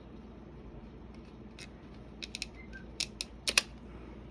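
A handful of small sharp clicks and taps from metal tweezers and plastic parts being handled while keyboard ribbon-cable connectors are worked loose from a laptop. The clicks come in the second half, the loudest pair near the end, over a low steady hum.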